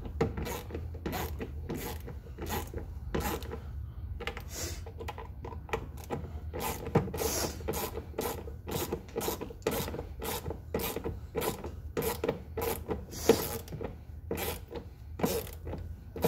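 Repeated short rasping scrapes and clicks, about two to three a second, from a screwdriver working the tail light screws into the rear pillar.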